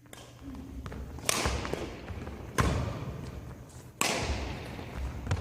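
Badminton rally: rackets striking the shuttlecock four times, sharp hits about a second and a half apart, echoing in a large hall.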